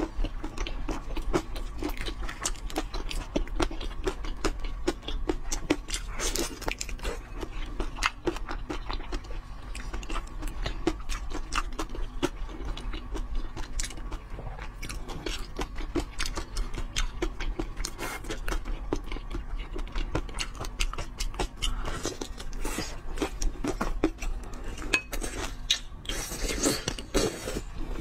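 Close-miked chewing and eating of large prawns: a dense run of small wet clicks and crunches, with shells crackling as the prawns are handled. A steady low hum sits underneath.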